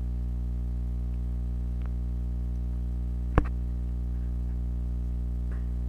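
A steady low hum with a stack of buzzy overtones, and a single sharp click about three and a half seconds in.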